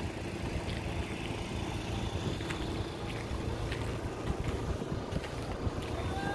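Wind rumbling on the microphone, with a faint steady hum underneath and scattered light clicks.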